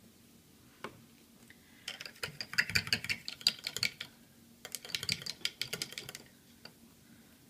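Two bursts of rapid light clicking and rattling, each about one and a half to two seconds long, with a single soft knock about a second in.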